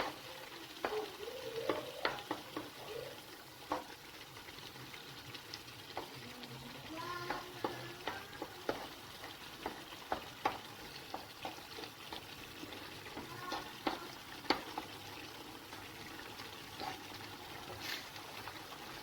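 Seafood rice with stock and tomato paste sizzling in a pan while it is stirred, a spoon knocking and scraping against the pan every second or so over a steady sizzle.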